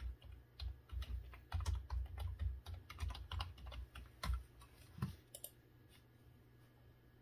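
Typing on a computer keyboard: a quick, uneven run of keystrokes for about four and a half seconds, then a couple of separate clicks before it stops.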